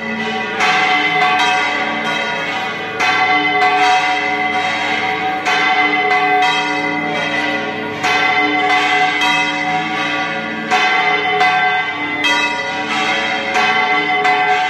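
Church bells pealing: a new stroke comes about every half second to a second, and each one rings on into the next.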